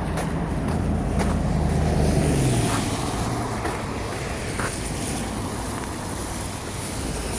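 An engine running with a steady low hum that drops away about two and a half seconds in, leaving a steady rushing noise.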